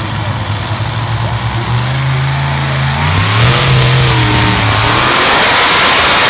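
Modified pulling tractor's engine revving with wavering pitch, then opening to full power about three seconds in as the pull starts, holding a loud, steady roar.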